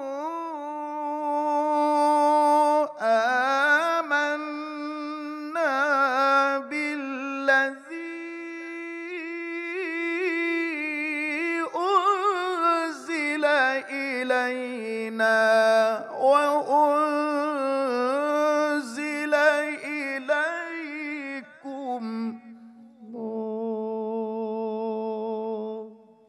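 Male qari's melodic Qur'an recitation (tilawah) sung into a microphone: several long drawn-out phrases with ornamented runs and trills, separated by short breaths. The last phrase settles on a long steady lower note.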